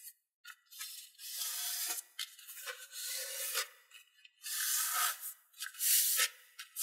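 Hands rubbing and sliding along a folded strip of origami paper, pressing the creases flat, in several separate papery swishing strokes.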